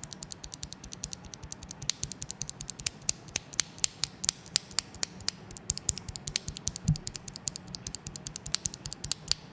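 A single Gateron Black linear mechanical keyboard switch pressed and released by hand over and over, giving a quick run of light clicks, several a second. The switch is stock from the factory and not yet lubed.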